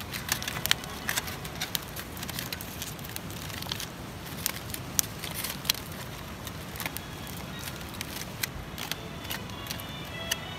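Wood campfire crackling, with irregular sharp snaps over a low steady rush.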